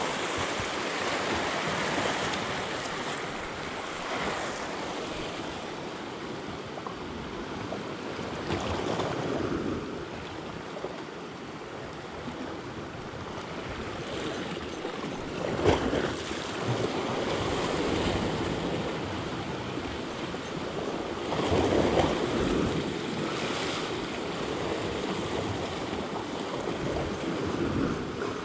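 Small sea waves washing against a rocky shoreline: a steady wash that swells as each wave comes in, with a sharp splash a little past halfway.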